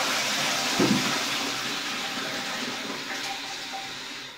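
Toilet flush from a newly fitted water-saving cistern: water rushes out in an even noise that fades steadily and drops away at the end.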